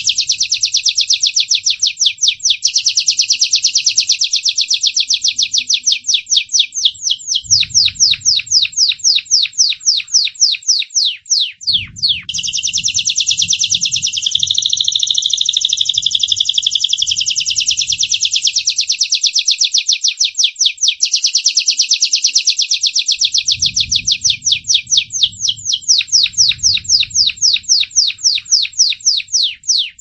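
Gloster canary, a white crested (corona) bird, singing a long unbroken song. Smooth rolling passages alternate with fast trills of rapidly repeated notes, with a brief break about twelve seconds in.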